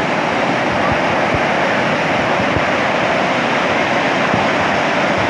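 Waterfall: water falling and splashing into a pool, a steady, even rush.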